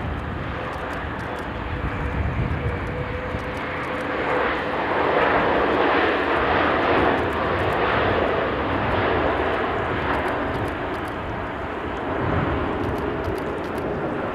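Boeing 787-9 airliner with Rolls-Royce Trent 1000 engines landing and rolling out. A faint steady engine whine is heard at first; about four seconds in the jet noise swells into a broad rushing sound, holds for several seconds, then eases near the end.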